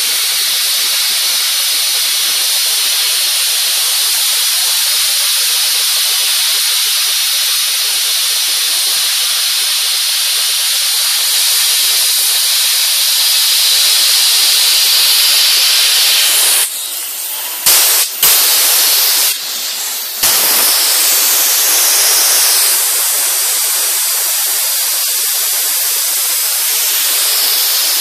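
Sandblasting nozzle blasting abrasive grit against a boat's underwater hull to strip it: a loud, steady hiss of compressed air and sand. The blast drops away briefly about three times a little past the middle, then carries on.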